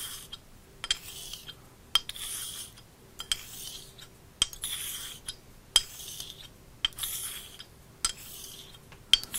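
Straight razor blade honed on a small water-wetted ceramic barber hone: a soft, hissy scraping stroke about every 1.2 seconds, each with a light click at the turn as the blade is flipped over on its spine. Every second stroke is a little louder.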